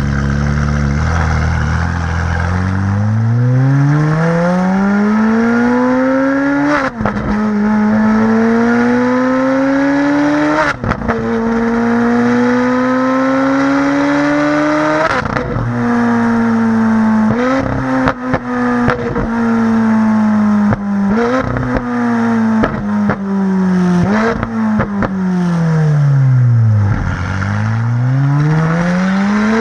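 Ferrari 458 Spyder's naturally aspirated V8 through an Innotech valved performance exhaust, pulling hard through the gears. The pitch rises and drops at upshifts about 7, 11 and 15 seconds in, then falls with stepped downshifts and short cracks, and climbs again under acceleration near the end.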